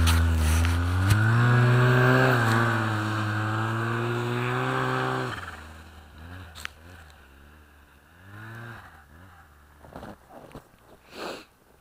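Snowmobile engine at throttle, pulling away uphill through deep snow. The engine note rises about two seconds in and holds steady, then drops away sharply a little past five seconds in as the sled gets far off, leaving only faint engine sound.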